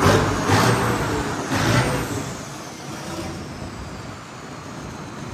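Indo Farm tractor's diesel engine running loudly with a pulsing beat, then falling away to a quieter rumble about two seconds in.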